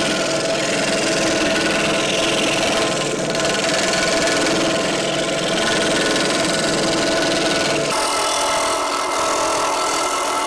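Yutaka electric scroll saw running steadily, its reciprocating blade cutting a wooden board. About eight seconds in, the tone shifts abruptly.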